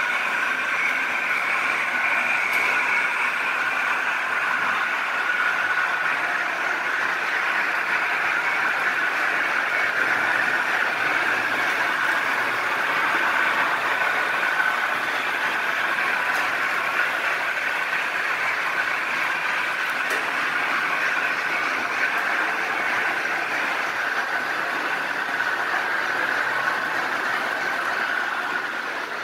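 Märklin HO model trains running on the track: a steady whirr of small electric motors and wheels rolling on the rails.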